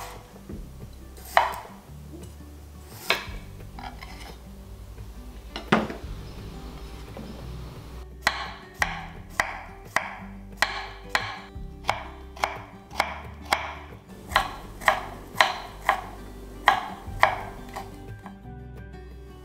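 Chef's knife cutting vegetables on a wooden cutting board: a few separate cuts through potato, then, from about eight seconds in, a steady run of about two knife strokes a second slicing cucumber and dicing carrot. Soft background music underneath.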